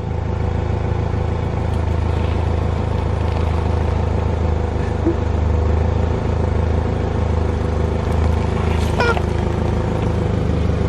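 Car engine running steadily as the car creeps slowly onto a pile of rubber squeaking chickens, with one brief rising squeal near the end.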